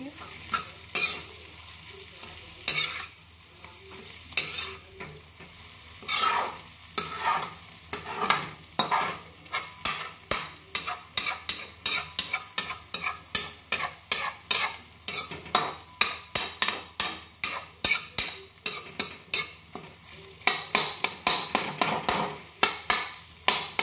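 A metal spatula scraping and stirring a mashed-potato mixture against a black kadhai, stroke after stroke, over a light sizzle of frying. The strokes come a few seconds apart at first, then about two a second, and come faster near the end.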